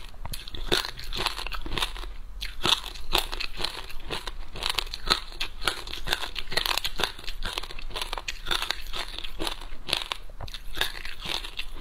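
Chewing frozen passion fruit pulp: a rapid, continuous run of crisp crunches as the frozen pulp and its seeds break between the teeth.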